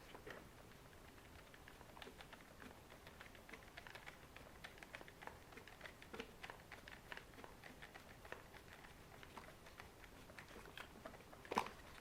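Faint, irregular small clicks and ticks of bolts being fitted and turned by hand into an RC car's plastic parts, with one louder click near the end.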